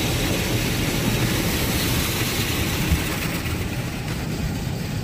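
Automatic car wash heard from inside the car: water and soapy foam spraying and drumming on the windshield, windows and body over a low rumble of the wash machinery, a steady dense noise.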